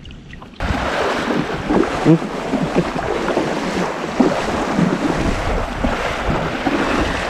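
Sea water sloshing and splashing close to the microphone, mixed with wind noise on the mic. It starts abruptly about half a second in and then runs steadily loud.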